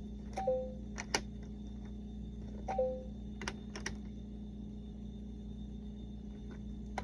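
Plastic clicks and clacks of the magnetic letter pieces being pulled out of and pushed into the slots of a LeapFrog Fridge Words word builder, with a short two-note falling beep from the toy twice, over a steady low hum.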